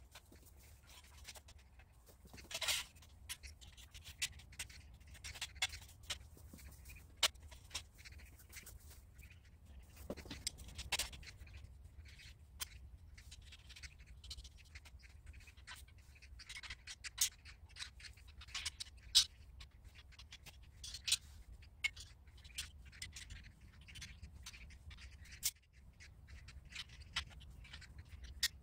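Irregular clicks, taps and short scrapes of steel pipe frame parts and their joint fittings being handled and fitted together by hand, with a low steady hum underneath.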